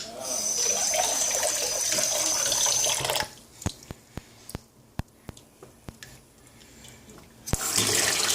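Kitchen sink tap running in a steady rush, shut off about three seconds in; a string of sharp single drips of water follows, and the tap runs again near the end.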